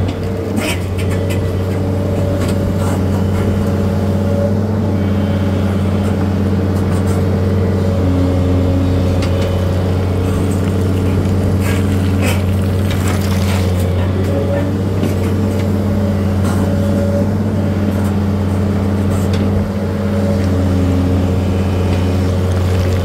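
A machine's engine running steadily at one constant speed, with a few brief knocks over the hum.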